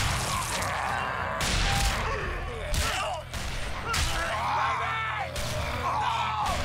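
Several gunshots at irregular intervals, mixed with people screaming and shouting.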